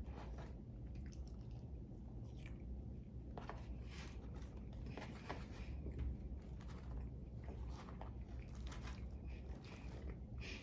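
A person chewing and biting food close to the microphone: faint, irregular crunches and wet mouth sounds.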